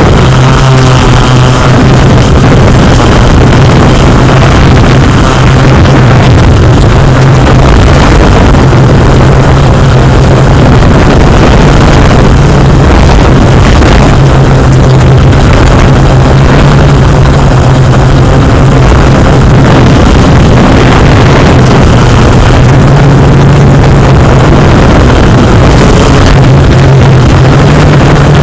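Quadcopter drone's motors and propellers running steadily, a constant low hum under a rushing noise, very loud and close.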